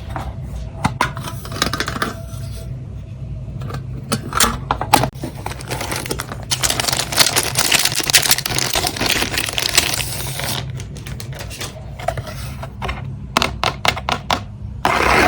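Stationery and its packaging being handled: scattered clicks and taps, with a few seconds of dense rustling in the middle, then more clicks.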